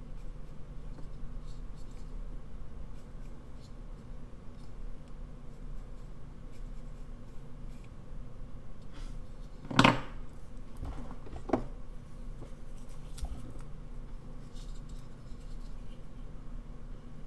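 Faint scratching of a pencil and small cuts of a V-gouge on a basswood carving blank, with a sharp clack about ten seconds in and a lighter one soon after as tools are handled, over a steady low hum.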